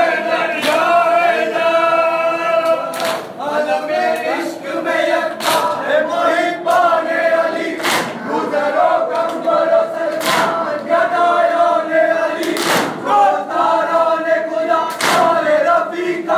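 A crowd of men and boys chanting a noha in unison, with hands slapping chests together in Bushehri-style matam, a sharp slap about every two and a half seconds.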